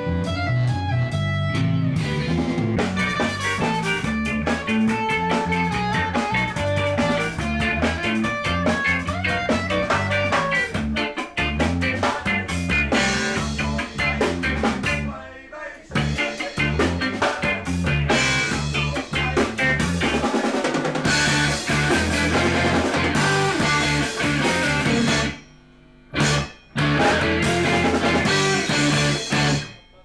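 Ska-punk band practising, with electric guitars, bass guitar and drum kit playing through amplifiers. The music drops out briefly about halfway. It stops short near the end apart from two brief stabs, then plays on and cuts off abruptly.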